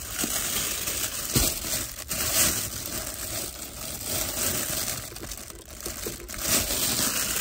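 Clear plastic bread bag crinkling and rustling as gloved hands open it and pull slices of bread out onto a wooden cutting board, with a light knock about one and a half seconds in.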